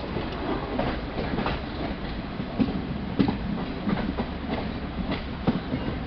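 Running noise of an Indian Railways Duronto Express coach at speed, heard from on board: a steady rumble of wheels on rail with irregular clacks and knocks as the wheels run over the track.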